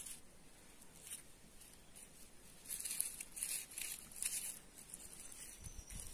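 Dry, papery garlic skins crinkling and rustling as they are handled and dropped onto potting soil, in short crackly bursts that are densest in the middle. A low rumble comes in near the end.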